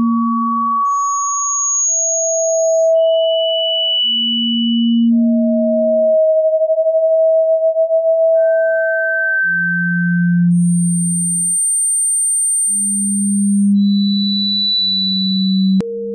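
Electronically generated pure sine tones for tinnitus sound therapy, stepping between low hums and very high whistles. Each tone is held for one to three seconds, and usually a low and a high tone sound together. About halfway through, a held middle tone wavers rapidly, and a sharp click comes near the end.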